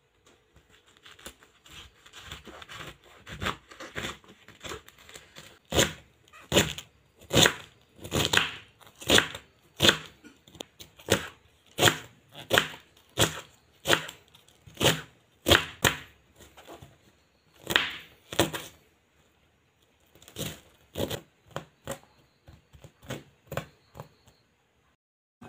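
Kitchen knife shredding a wedge of raw cabbage on a wooden cutting board: a run of crisp cuts, mostly one to two a second, softer and closer together at first, with a brief pause about three-quarters through.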